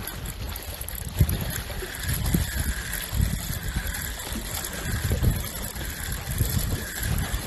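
Seawater washing and trickling at the shoreline, with uneven low rumbles coming and going every second or so.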